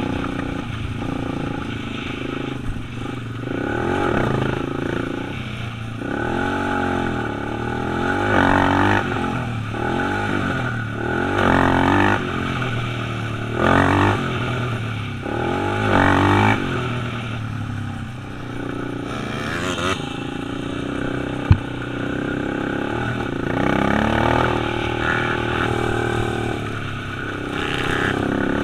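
ATV engine running under throttle, revved up and down several times in quick succession through the middle, then settling to a steadier pull. A single sharp click about three-quarters of the way through.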